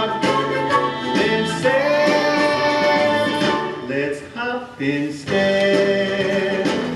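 Music: a song with a singing voice over guitar and other instruments.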